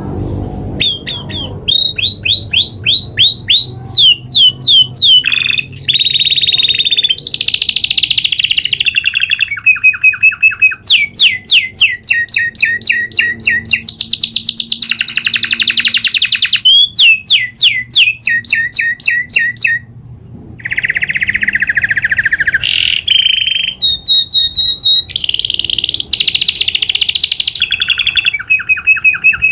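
Domestic canary singing a long rolling song: rapid runs of repeated high chirps and trills, changing from one run to the next, with a brief pause about two-thirds of the way through.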